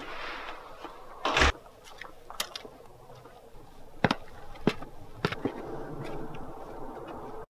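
Footsteps of hard-soled shoes on concrete steps: a handful of sharp footfalls spaced about half a second to a second apart, with one louder thump about a second and a half in, over steady background noise.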